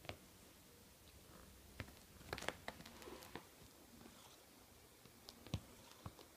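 Near silence, broken by a few faint, short clicks and taps and some soft rustling as a hand rubs a cat's fur against a plush toy. There is a small cluster of clicks a little over two seconds in, and a sharper single tap near the end.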